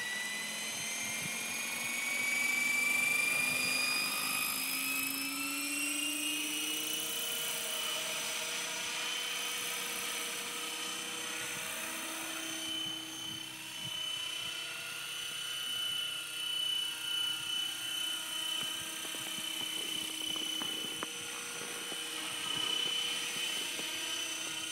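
Swift 16 RC helicopter spooling up, its high whine rising in pitch over the first several seconds, then holding steady as it flies.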